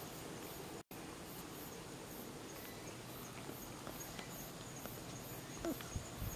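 Faint outdoor background: a steady hiss with a few soft ticks, breaking off for an instant just under a second in. A couple of soft low bumps come near the end.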